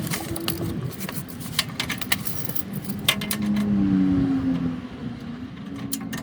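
Metal clicks and clinks of a socket wrench and loose bolts while the last bolts of an SUV's underbody skid plate are taken out, over a low wavering hum.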